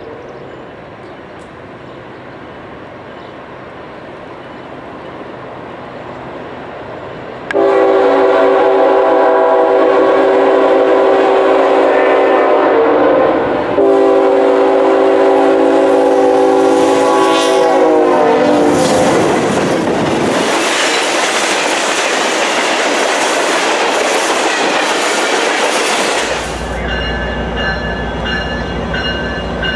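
Union Pacific diesel freight locomotive approaching, then sounding its multi-chime air horn in two long blasts, the first about six seconds, the second about four. The freight train then rolls past with loud wheel and rail noise. Near the end, a passenger diesel locomotive's engine rumbles low as it approaches.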